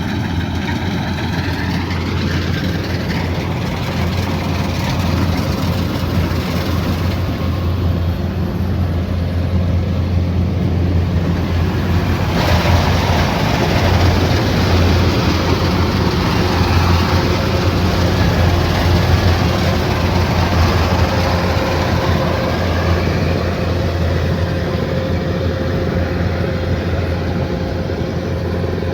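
Kubota DC108X combine harvester running steadily: a low engine drone with a dense mechanical rush over it. The rush grows harsher and slightly louder about twelve seconds in.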